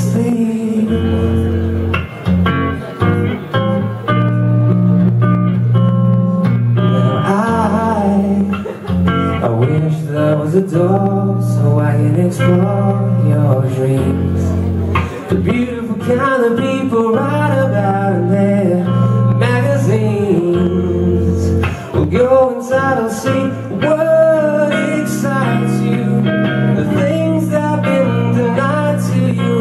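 A man singing, accompanying himself on a guitar laid flat across his lap, with picked notes ringing over a steady low bass throughout.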